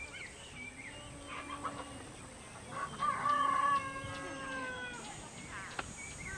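A rooster crowing twice, the second crow louder and longer, with small birds chirping.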